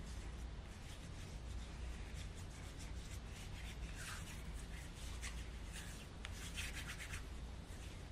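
Soft rubbing and rustling with scattered light clicks throughout, the sound of hands handling small things close by, over a low steady room hum.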